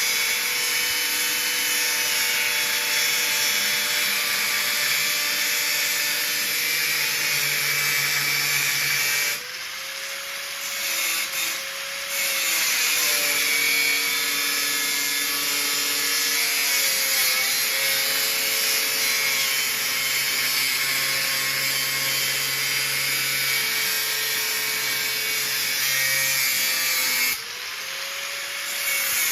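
Electric angle grinder grinding the snowmobile's thin steel frame, a steady loud hiss over the motor's whine. Twice the grinding stops for a moment as the disc comes off the metal, and the motor's pitch rises before the grinder bites again.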